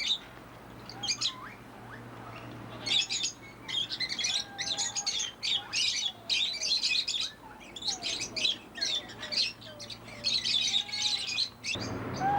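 Birds chirping rapidly and almost without pause, many high chirps overlapping, with short falling whistles repeated lower down; the chirping thickens about three seconds in.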